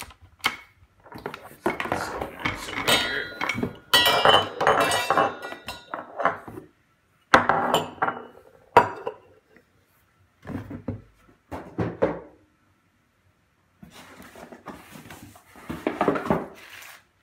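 Espresso set parts and their packaging being handled: irregular clinks and clatter of hard pieces knocked together and set down, with a ringing metallic clink about four seconds in.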